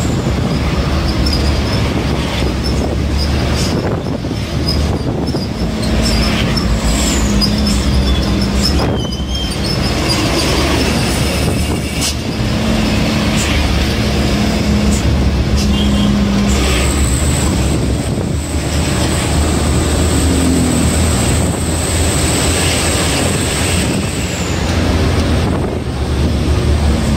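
Engine and road noise inside a moving truck's cab: a steady low drone with dense rattling of the cab and its fittings.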